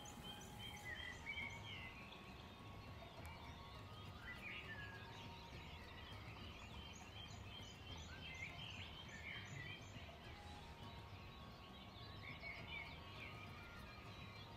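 Faint outdoor ambience with small birds chirping and twittering, including two runs of quick, high, evenly spaced peeps, over a low steady background hum.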